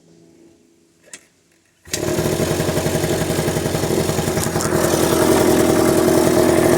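A 2002 Arctic Cat 90cc ATV's small two-stroke engine fires abruptly about two seconds in, after a short click. It then runs steadily.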